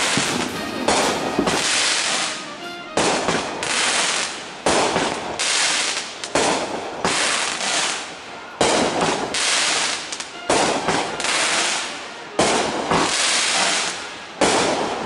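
Aerial firework shells bursting in quick succession, about a dozen sharp bangs one to two seconds apart. Each bang trails off in a hissing, crackling tail.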